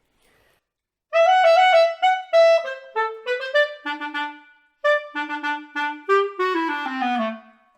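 Solo clarinet playing a quick phrase of short, tongued notes, starting about a second in and moving up and down, with a few lower notes near the end.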